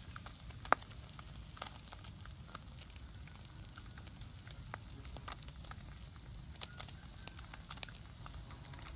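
Wood fire crackling, with scattered small pops and one sharp, loud pop just under a second in.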